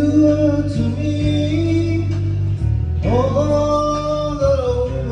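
A slow song with guitar accompaniment and a voice holding two long sung notes, the second starting about three seconds in.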